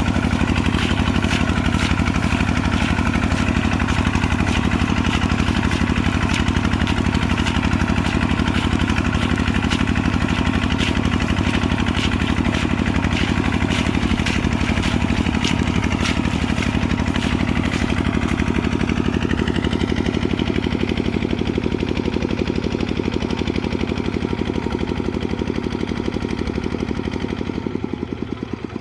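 Kubota RT140 single-cylinder diesel engine running steadily under plowing load with a fast, even chug. A faint rising whine comes in about two-thirds of the way through, and the engine gets a little quieter near the end.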